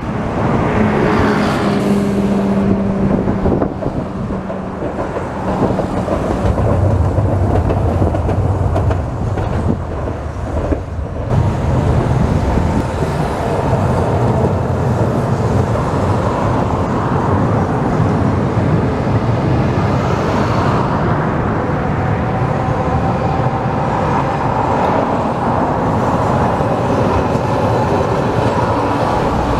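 Hiroden streetcars running past on street-level tram track: a steady hum of the cars' motors and their wheels on the rails, mixed with road traffic. The sound changes abruptly about a third of the way through.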